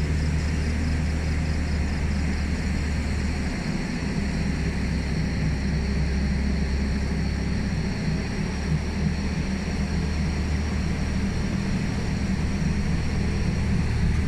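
Safari tram running steadily at low speed: a constant low rumble and hum from the vehicle.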